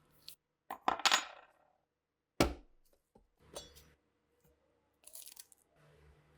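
Small metal parts clinking and knocking as they are handled and set down on a hard surface. First a rattling clink with a short ring, then a sharp knock about two and a half seconds in, then lighter clinks.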